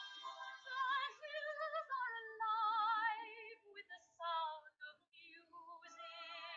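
A woman singing a melody with strong vibrato on long held notes, the phrases broken by short pauses.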